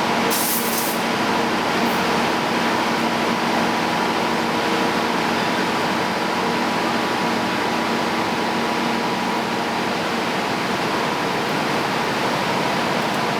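Rail-welding machinery running steadily: a constant mechanical drone with a few steady hum tones and a short hiss about half a second in.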